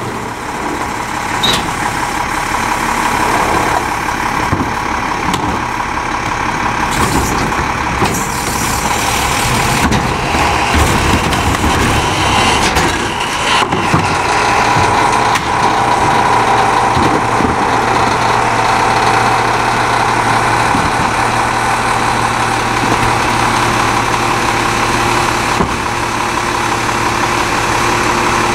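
E-Z Pack rear-loader garbage truck's diesel engine running steadily, with a sustained whine that grows louder around the middle. Scattered knocks and clatter come as wheeled carts are handled and tipped into the rear hopper.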